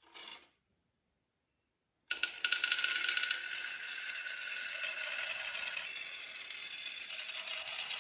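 Marbles rolling and clattering down a wooden marble run: a short clack at the very start, then, about two seconds in, a dense rattle of many quick clicks over a steady ringing rolling sound that keeps up evenly.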